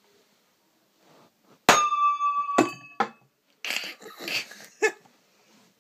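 A sharp crack as the capacitor bank discharges through the launcher coil and fires the metal disc. The disc then rings with a clear metallic tone for about a second, and a couple of knocks follow as it comes down, then a rougher noisy stretch.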